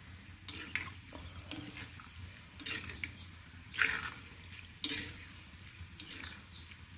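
Steel ladle stirring and scraping through coconut oil boiling with chopped shallots and hibiscus in a black kadai, with liquid sloshing and sizzling in short, irregular strokes. The oil is being stirred so the ingredients don't burn.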